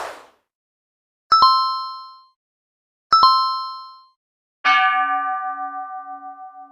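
Two bright metallic dings about two seconds apart, each fading out over about a second, then a longer bell-like chime with a slowly pulsing low tone, still ringing near the end. An outro chime sound effect.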